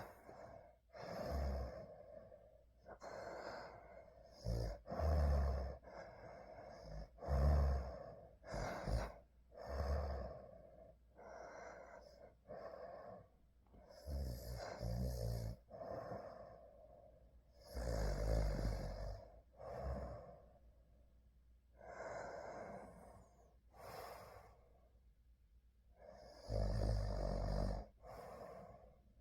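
A sleeper snoring: slow, irregular breaths in and out, some of them carrying a low rattling snore.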